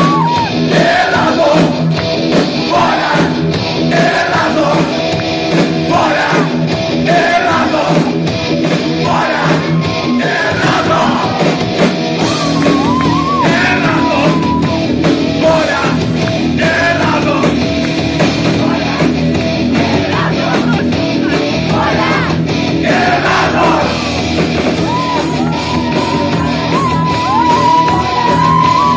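Loud heavy metal song: a singer holds long high notes and shouts lines over a dense, steady band.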